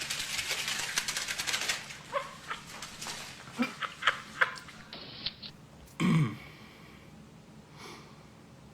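Panicking cat scrambling: about two seconds of scuffling and clattering, then scattered sharp knocks, and a short low cry falling in pitch about six seconds in.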